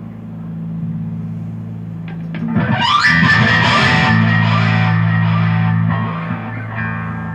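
Electric guitar played through effects with distortion: a low note drones steadily, then a loud sound sweeps upward in pitch about two and a half seconds in, rings on for a few seconds and fades.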